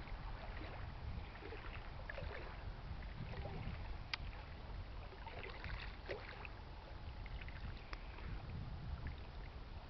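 Faint riverside ambience: a steady low rumble with scattered faint higher sounds, and a short sharp click about four seconds in and another near eight seconds.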